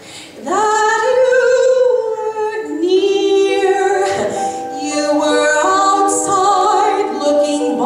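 A woman singing solo, with long held notes and vibrato; her voice comes in about half a second in with an upward slide into the first note.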